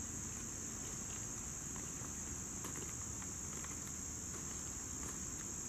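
Steady, high-pitched insect chorus, the unbroken shrill of crickets, over a low background rumble.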